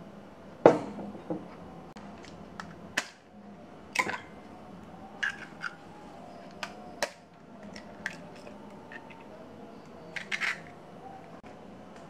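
A ceramic bowl knocked down onto a wooden counter, the loudest sound. Then a string of sharp taps and cracks as two eggs are broken open against a utensil and emptied into the bowl, with a quick cluster of clicks near the end.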